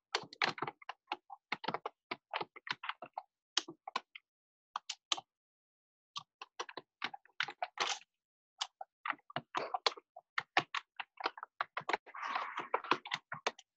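Computer keyboard typing heard over a video call: irregular clatter of key clicks with near silence between them, and a denser flurry near the end.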